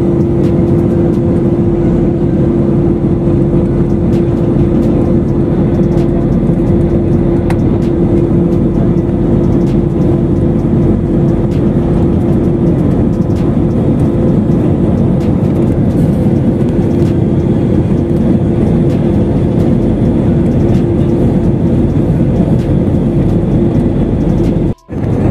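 Jet airliner cabin noise heard from a window seat: a steady engine and airflow roar with a constant droning hum. The sound cuts out for a moment near the end.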